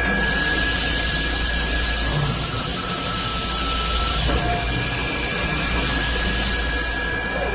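CNC beam drilling machine running: a steady hiss with a constant high whine over it.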